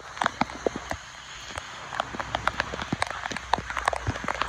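Light rain: scattered raindrops striking close to the microphone as irregular sharp ticks, several a second.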